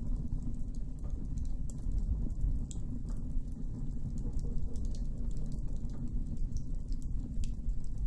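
Wood campfire burning, with many small sharp crackles and pops scattered irregularly over a steady low rumble.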